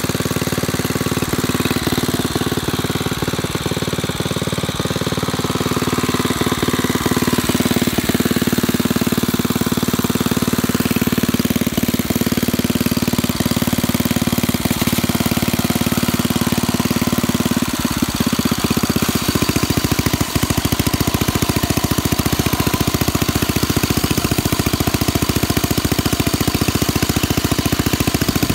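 Single-cylinder Briggs & Stratton Model A engine on a 1937 Stearns mower running steadily, with fast, even firing beats. Its tone shifts slightly about two-thirds of the way through.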